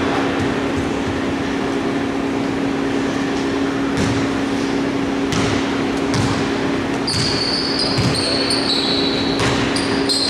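Basketball dribbled on a hardwood court in a large hall, with a few separate bounces over a steady low hum. From about seven seconds in come short high squeaks of shoes on the floor.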